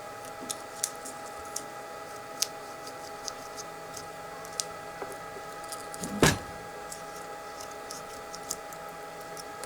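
Scissors snipping off the excess ends of the insulating slot separators on a rewound ceiling fan stator: scattered small sharp clicks, with one louder snip about six seconds in, over a steady background hum.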